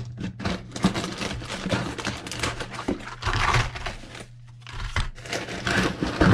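Plastic lure packaging crinkling and rustling, with a string of irregular small knocks and clacks as packs of soft baits, jig heads and spoons are set down on a wooden desk.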